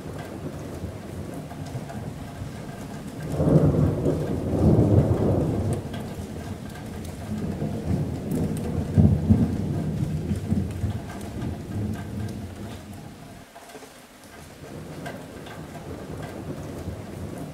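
Rain falling steadily on a metal roof, with rolling thunder: a loud rumble about three seconds in, and a second long roll from about eight seconds in that dies away.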